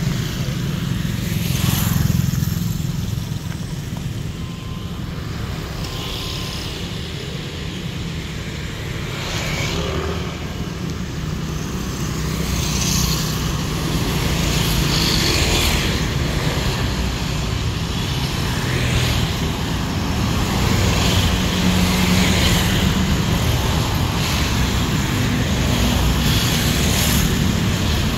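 Road traffic: motorcycles and cars passing one after another every few seconds, over a steady low rumble.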